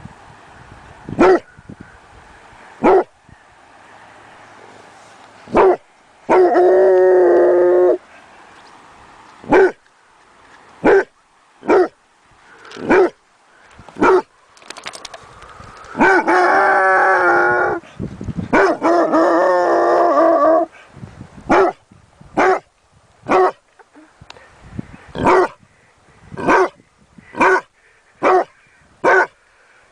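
Dog barking in single sharp barks spaced a second or two apart, falling into about one a second near the end. Three drawn-out howls of about two seconds each come in between.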